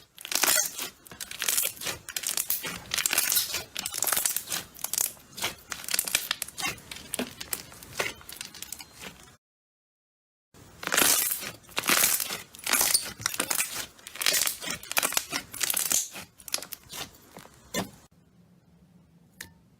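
Slime being squished and stretched by hand, a fast run of sticky crackling and popping. It cuts off abruptly about nine seconds in, returns after about a second of silence, and stops about eighteen seconds in, leaving two faint clicks near the end.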